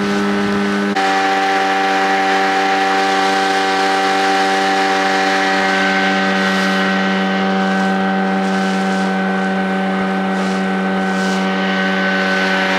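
Outboard motor running steadily at a constant high speed with the boat under way, a level droning engine note over a hiss of water and wind. The note shifts slightly about a second in.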